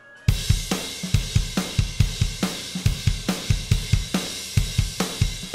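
Drum-kit music: a fast, even beat of bass drum and snare under steady cymbals and hi-hat, starting suddenly a moment in.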